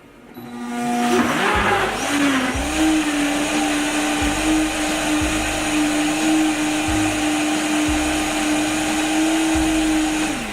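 Countertop blender motor spinning up about half a second in, then running at a steady pitch as it blends a liquid flan batter of cream cheese, condensed milk, evaporated milk and eggs. It winds down with a falling pitch near the end.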